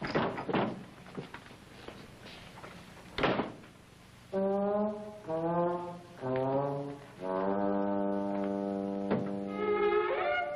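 A few knocks and one sharp thump, then a brass music cue about four seconds in: three short phrases, a long held note, and a higher chord sliding upward near the end.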